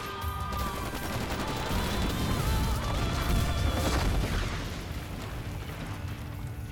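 Dramatic trailer music mixed with gunfire and explosion booms over a low rumble, with a sharp hit about four seconds in.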